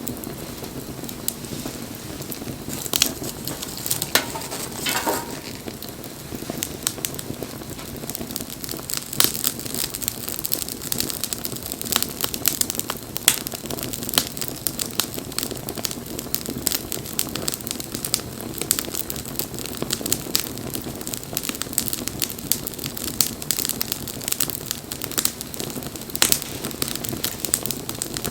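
Wood fire crackling, with frequent sharp, irregular pops and snaps over the steady rustle of the flames.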